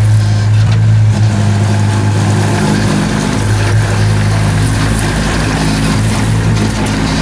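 JCB 8018 CTS mini excavator's diesel engine running steadily, a loud low drone, while the machine works its bucket through gravel. The engine note shifts slightly about a second in and again near the middle.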